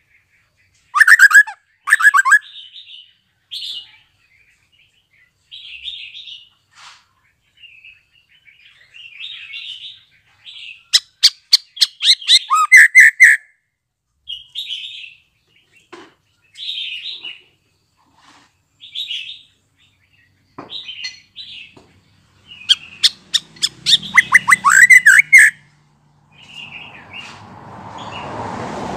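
Young male white-rumped shama, just out of its spotted juvenile plumage, calling with short chirps repeated every second or so. Three times the chirps give way to loud bursts of rapid rattling notes: about a second in, in the middle, and near the end. A low rustling noise comes in under the calls in the last few seconds.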